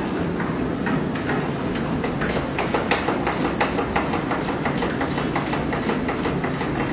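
A steady low hum with quick, irregular knocking and clicking, several knocks a second and busier from about two seconds in.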